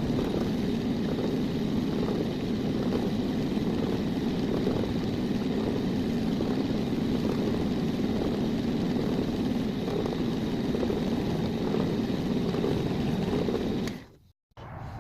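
Power tool motor running steadily under load, stopping about fourteen seconds in.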